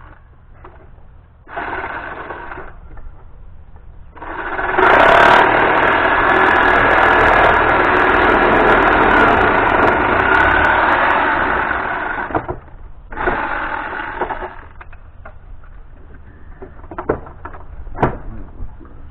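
Power tool cutting into pallet wood, run in three bursts: a short one, a long one of about eight seconds, then a short one. A few sharp wooden knocks follow near the end.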